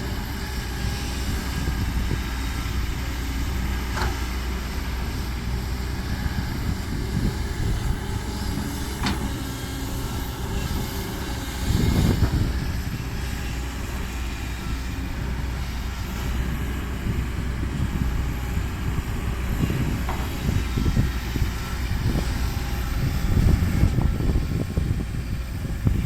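Heavy diesel dump truck engine running steadily, with a louder low rumble about twelve seconds in and again near the end.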